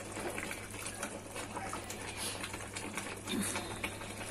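Pot of water boiling with lettuce leaves in it, bubbling steadily with irregular small pops, as the leaves are turned with chopsticks; a steady low hum runs underneath.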